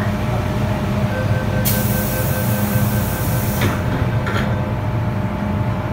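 Metro train saloon doors closing: the intermittent door-closing warning beeps start about a second in while the doors shut with a loud hiss, ending in a thud about three and a half seconds in and a second knock just after, over the train's steady hum.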